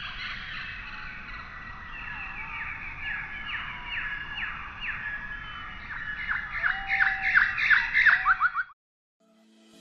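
Birds calling: many repeated squawks, each sliding downward in pitch. They come quicker and louder toward the end, then stop suddenly.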